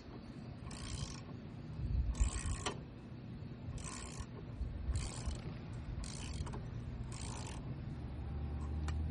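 Hand ratchet wrench worked in short strokes on the car's front suspension during a ball joint replacement, each stroke a brief clicking rasp, about six of them, one every second or two, over a low steady background hum.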